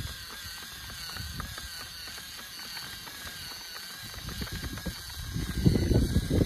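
Small electric drive motor and gears of a handmade RC tracked tractor running with a steady wavering whine and regular clicking from the drivetrain and tracks. Wind rumbles on the microphone, growing louder near the end.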